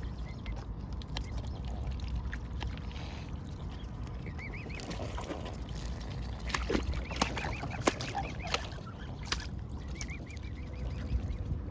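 An animal working a food dispenser: sharp knocks and rattles bunched in the middle, with short wavering high calls that come back several times.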